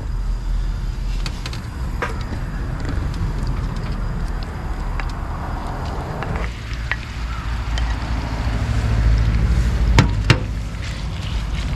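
Pork frying in a pan: a faint sizzle under a steady low rumble, with a few sharp clicks and knocks, the loudest about ten seconds in.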